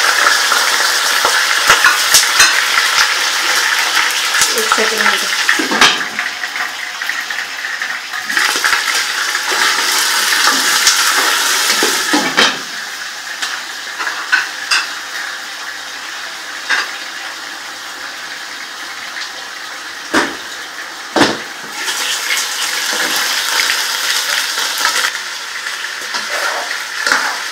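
Raw chicken pieces frying in hot oil in a nonstick frying pan on high flame: a loud sizzle with spatula scrapes and knocks against the pan. About halfway through the sizzle drops to a quieter level under a glass lid, with a few sharp knocks of the lid and spatula later on.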